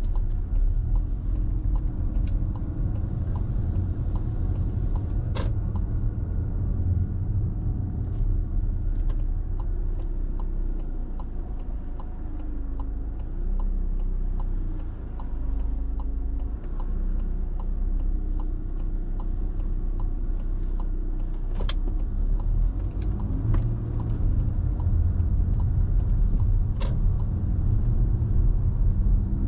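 Car engine and road noise from the car being driven, going quieter while it waits at a junction, with the engine note rising and falling as it pulls away. Through the middle a turn indicator ticks steadily, about three ticks a second.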